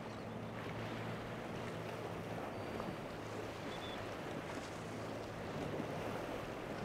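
A boat's engine running with a steady low drone over the wash of water and wind.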